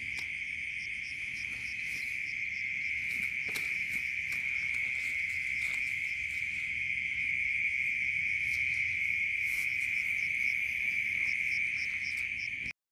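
Steady night chorus of insects, a continuous high-pitched cricket-like trill, with a fainter pulsing call above it. It cuts off suddenly just before the end.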